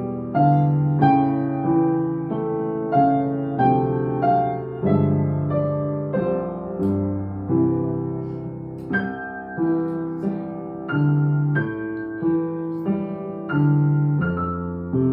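Upright piano played four hands by two children: a simple beginner duet at an even, moderate tempo, with an accented note or chord about once a second.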